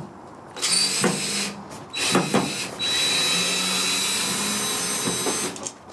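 Cordless drill-driver backing out a Phillips screw from a steel pickup tailgate: two short bursts, then a steady run of about two and a half seconds with a high whine.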